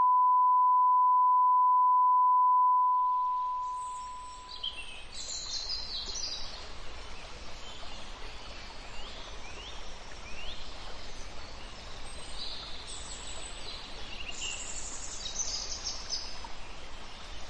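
A steady high-pitched beep tone holds for about three seconds, then fades away. Outdoor ambience follows, with birds chirping over a steady background rush.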